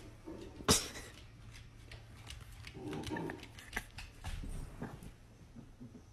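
Dog moving about on a hardwood floor: scattered clicks and knocks, the loudest about a second in, with a few faint short sounds from the dog.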